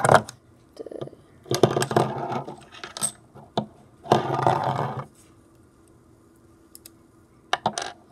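Plastic Lego bricks clicking and clattering as they are handled, in several short bursts of rattling with quiet gaps between, the longest about four seconds in.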